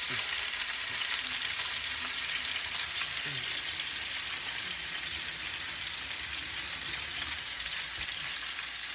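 Halibut fillets frying in hot olive oil in a stainless steel skillet: a steady sizzle with fine crackling spatter.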